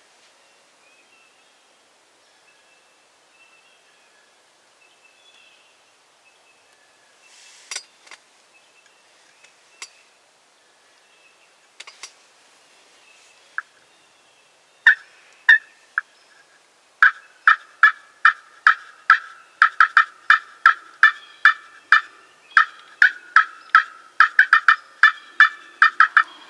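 Wild turkey calling: a few faint, soft calls at first, then from about fifteen seconds in a long run of loud, evenly spaced yelps, about two to three a second, lasting to the end.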